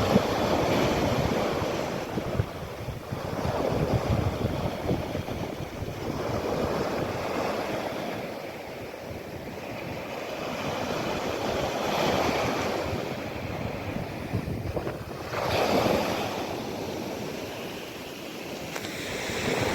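Mediterranean sea waves breaking and washing onto the shore, the surf swelling and ebbing in surges every few seconds.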